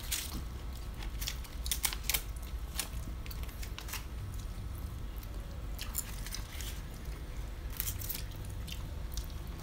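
Scattered sharp crackles and clicks of dry, charred banana-leaf packets of grilled fermented fish being picked through and pulled open by hand, with soft chewing, over a low steady hum.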